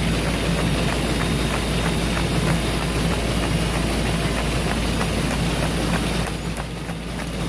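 Carton folder-gluer running: a steady mechanical hum and belt noise with a regular run of light clicks, about three a second, as the carton blanks feed through. The sound dulls and drops briefly near the end.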